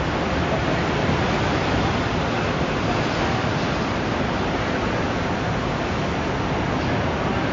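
Steady, even rush of sea waves as the tsunami comes in.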